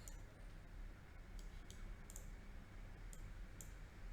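Computer mouse clicking: a handful of faint, sharp clicks, with a close pair about two seconds in, over a low steady hum of room and microphone noise.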